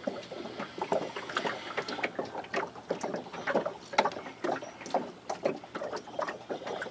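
Small boat moving through floodwater: irregular water splashes and light knocks, several a second.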